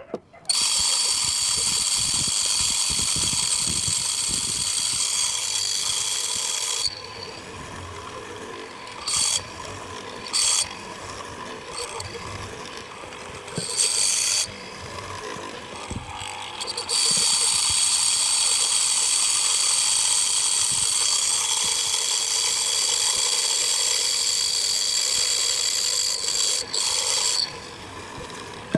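High-pitched power tool running in long stretches, with a steady whine. It stops near seven seconds, gives a few short bursts, then runs again from about seventeen seconds until shortly before the end.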